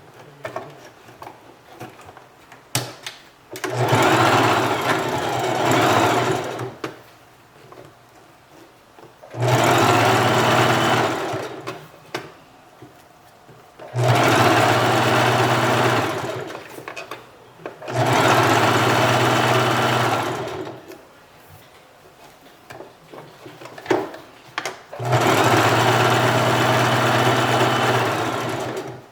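Sewing machine running in five stop-start runs of about two to four seconds each, with short pauses between them.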